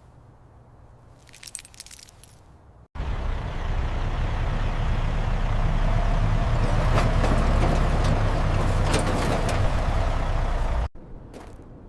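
A heavy vehicle's engine running with a deep rumble and rattling noise over it. It starts abruptly about three seconds in and cuts off abruptly about a second before the end, with only a few faint clicks before it.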